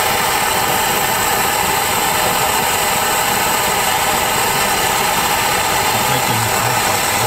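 Handheld gas torch burning with a steady hiss, its flame played on a golf cart's driven-clutch shaft to heat loose a seized clutch.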